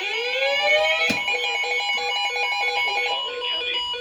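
Several weather alert radios and scanners sounding their alert tones together: overlapping electronic beeps, some steady and some pulsing rapidly, with rising sweeps in the first second and a sharp click about a second in.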